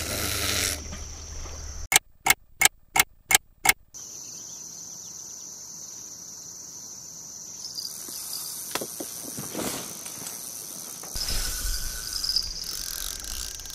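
Crickets chirring steadily in the summer grass, with a run of six sharp, evenly spaced clicks about two to four seconds in.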